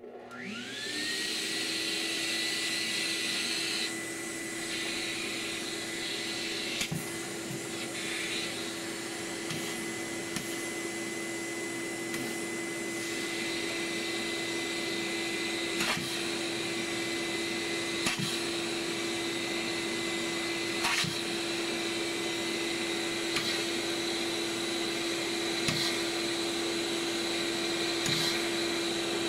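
Vacuum cleaner switched on, its motor spinning up within about a second, then running steadily as it sucks dust from a resin 3D printer's mirror compartment. There are a few light taps along the way.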